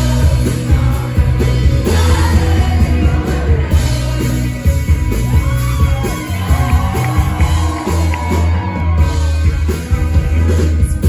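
Indie rock band playing live, with electric guitars, bass, keyboard and drums under a lead singer's voice. Heard from within the audience, with a heavy bass.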